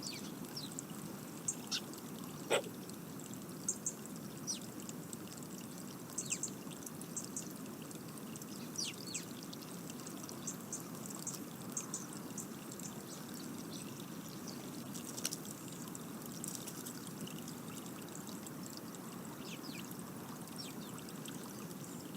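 Garden birds giving scattered short, high chirps over a steady low rushing background, with one sharp tap about two and a half seconds in.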